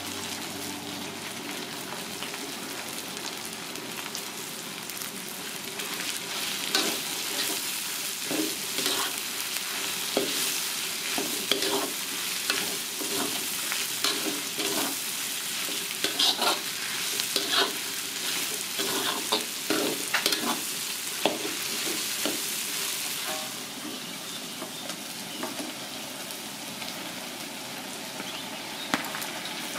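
Chopped spring onions and greens sizzling in hot oil in a metal wok, a steady hiss. Through the middle a metal spatula scrapes and taps against the wok. Near the end raw wild boar pieces are tipped in with a couple of sharp knocks.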